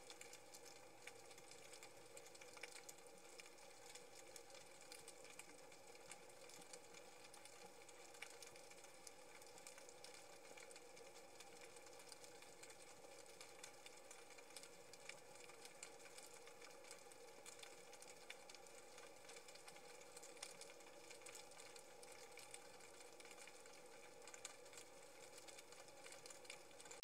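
Near silence: a faint steady hum with light scattered crackle.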